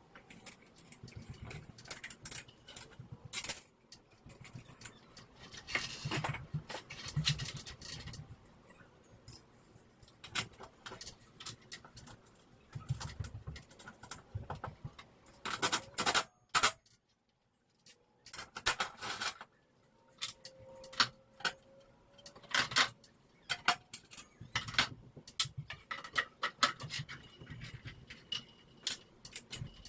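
Irregular clicks, clanks and rattles of metal hardware and tools being handled while a garage door opener is installed. A little over halfway through, the sound cuts out completely for about a second.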